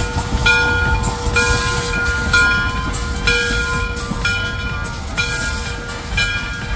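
Steam locomotive's bell ringing about once a second over the low rumble of the engine working as it passes.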